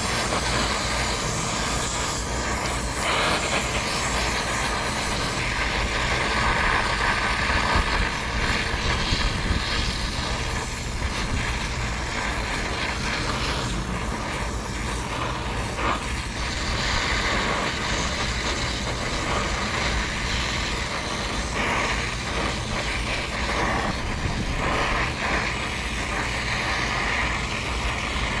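Brazing torch flame hissing steadily as it heats a copper suction-line joint at an AC condenser's service valve, with gusty wind buffeting the microphone.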